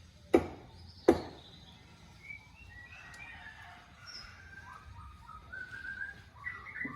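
Two sharp knocks about three quarters of a second apart early on, the last of a run of strikes. After them, birds chirp with short repeated calls.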